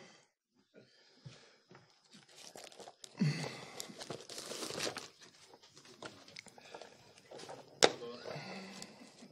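Rustling and handling noises, with one sharp click about eight seconds in.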